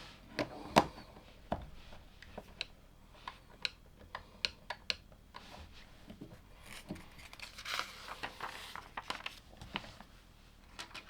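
Plastic LEGO pieces being handled and clicked together: a string of sharp clicks and taps, the loudest just under a second in. A stretch of rustling like pieces being sifted comes at about eight seconds.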